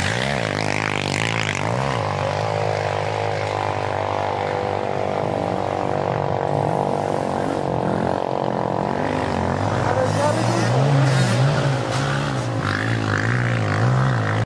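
Off-road motorcycle engines idling close by, a steady drone from more than one engine, with the revs rising and falling a little now and then.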